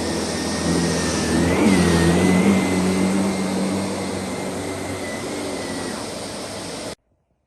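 Sebo Professional D9 commercial cylinder vacuum cleaner running, with a steady motor whine that rises briefly in pitch and gets louder about a second and a half in. The sound cuts off suddenly near the end.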